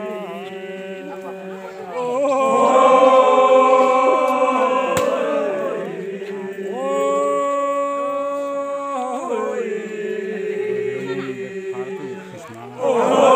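A group of voices chanting together in long, held notes, a traditional Timorese ritual chant. Phrases begin anew about two seconds in, again around seven seconds, and just before the end.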